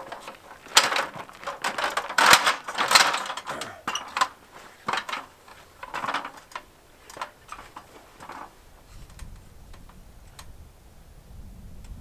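Stepladder clattering and clicking as it is shifted and climbed: a run of irregular knocks, busiest in the first few seconds and thinning out, then only a faint low rumble near the end.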